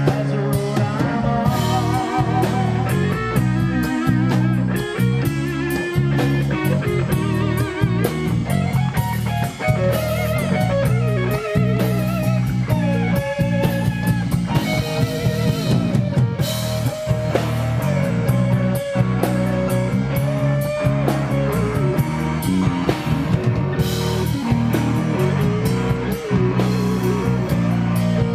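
Live rock band playing loudly: a lead electric guitar plays a solo of bent, wavering notes over bass guitar and a drum kit, with no singing.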